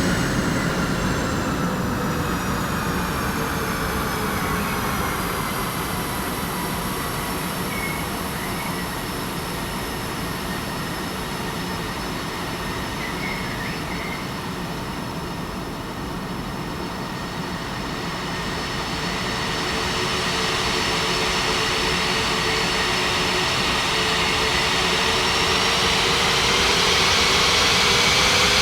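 Airliner jet engines running at low power: a steady roar with a whine of several high tones. The whine slides down at first, then climbs again and grows louder over the last several seconds.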